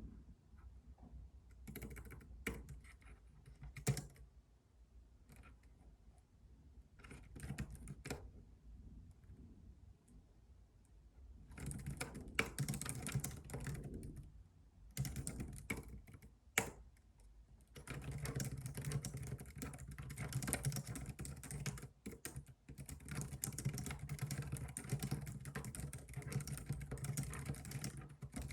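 Typing on a computer keyboard: a few short bursts of keystrokes at first, then longer runs from about the middle, turning into steady fast typing for the last ten seconds.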